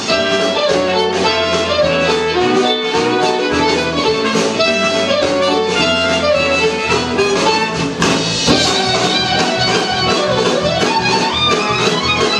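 Fiddle played fast and busy over a live band. About eight seconds in, a steady drum beat comes to the fore.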